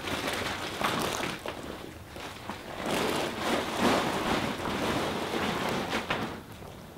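Large sheet of plastic car-cover bubble rustling and crinkling as it is handled and unfolded, in irregular swells that grow louder for a few seconds in the middle.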